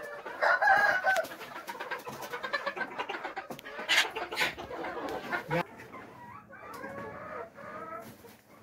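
A flock of laying hens clucking, with louder calls about half a second in and again around four seconds in.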